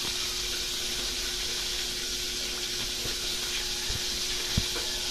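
Pot of soy-sauce water with onion, garlic and chili heating on the stove toward the boil, hissing steadily, with a faint hum and a few faint ticks.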